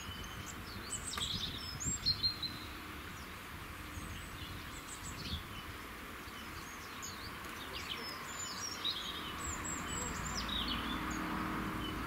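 Small songbirds calling around a bird table, with many short high chirps and twitters scattered throughout, over a steady low background rumble.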